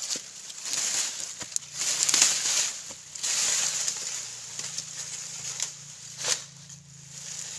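Leafy vines and dry stalks rustling as they are pulled down and tossed onto a pile, in irregular bursts with a few sharp cracks.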